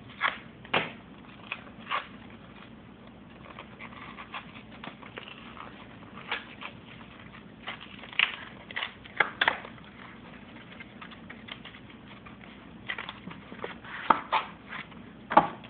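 MRE plastic packaging being handled and rummaged through: irregular crinkles, crackles and sharp clicks of plastic pouches.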